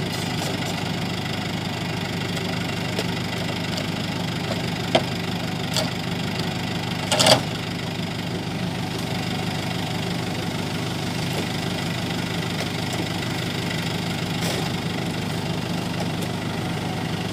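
Lorry engine idling steadily, with a few heavy thuds of oil palm fruit bunches being thrown up and landing on the lorry bed, the loudest about seven seconds in.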